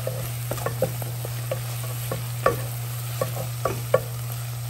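Wooden spatula stirring and scraping spinach and dried shrimp around a skillet, with irregular light knocks against the pan, the sharpest about two and a half and four seconds in. A soft sizzle and a steady low hum run underneath.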